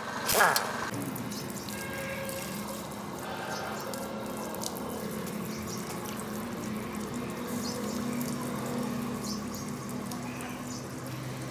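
Water from a garden hose splashing over a bare truck differential housing as it is washed down, a steady splashing, with a low steady hum underneath. A brief loud noise comes about half a second in.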